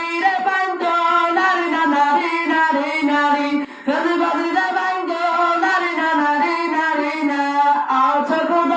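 High-pitched sung melody with a thin sound lacking any bass; it drops out briefly about three and a half seconds in.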